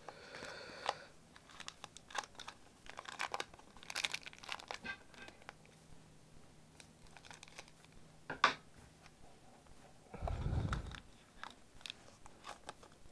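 Foil wrapper of a Pokémon trading card booster pack crinkling and tearing as it is opened by hand, with scattered faint crackles, a sharper crackle about eight seconds in and a dull thump near ten seconds.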